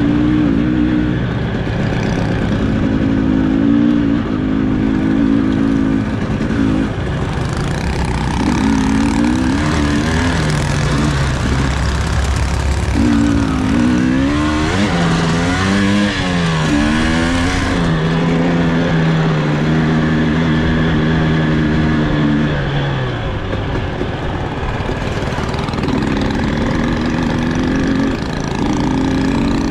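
KTM enduro dirt bike's engine being ridden along a dirt track, revving up and down as the rider works the throttle. The pitch wavers quickly around the middle, holds steady for a few seconds, then drops.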